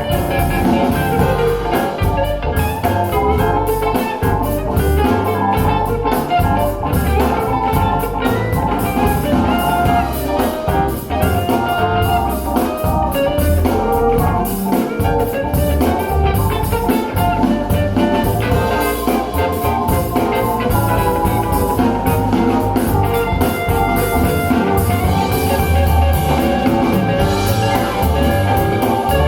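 Instrumental music with guitar and drums, played back through a pair of PSB Alpha P5 bookshelf speakers for a sound demo.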